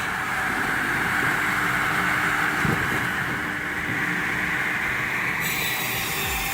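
Homemade firewood processor running steadily: a constant machine noise with a low hum underneath and a faint knock a little under three seconds in.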